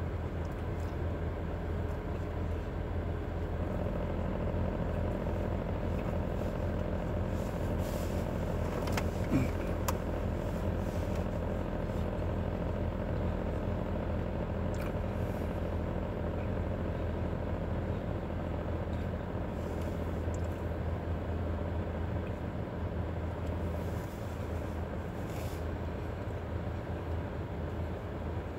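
Steady low vehicle rumble heard from inside a car's cabin, with a few faint rustles of a plastic sandwich wrapper around eight to ten seconds in.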